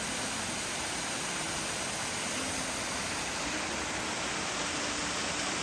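Steady rushing of a waterfall, an even, unbroken wash of water noise.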